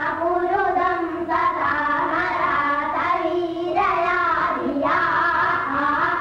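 Young boys' voices chanting Vedic verses together in a continuous sing-song recitation, with a few short breaks for breath. These are pupils repeating a recitation lesson after their teacher.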